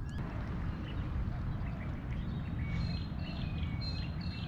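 Steady outdoor wind and water noise, with birds giving short, repeated high chirps from about halfway through.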